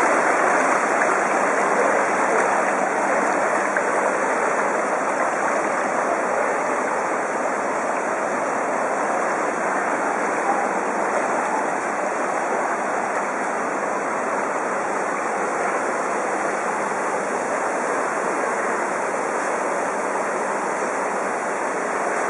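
Fast-flowing floodwater rushing along a flooded street: a steady, even rush of churning current.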